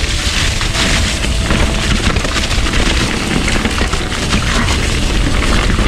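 Wind buffeting the microphone while a mountain bike rolls fast down a wet, muddy trail, with tyre noise and the rattle of the bike over rough ground.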